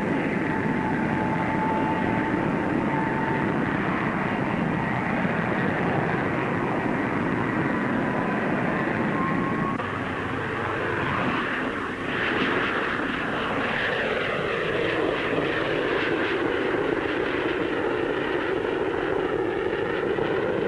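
Handley Page Victor jet bomber flying past, its engines making a steady jet roar. A faint high whine rises slightly over the first ten seconds, and the roar dips briefly about eleven seconds in before picking up again.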